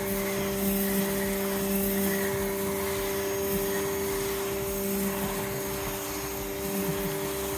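AVA P50 Smart pressure washer running steadily, its motor giving an even hum over the hiss of the water jet as it cleans patio paving.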